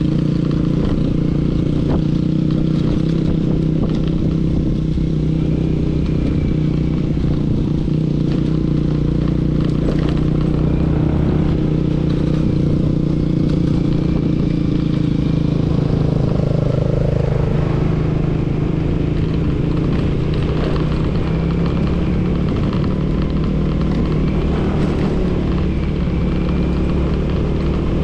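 Vehicle engine running steadily while travelling along the road, a continuous low drone with road noise.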